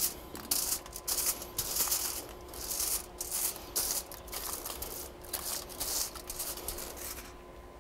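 Aluminium foil rustling and crinkling as butter is rubbed across it by a gloved hand, in repeated strokes that stop near the end.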